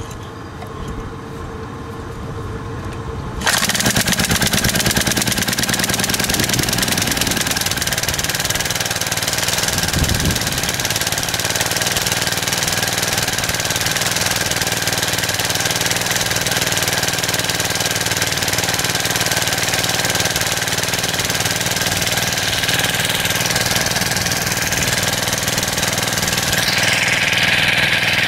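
Vintage Briggs & Stratton 3 HP single-cylinder engine with a freshly rebuilt carburettor being started: it catches about three seconds in and then keeps running steadily.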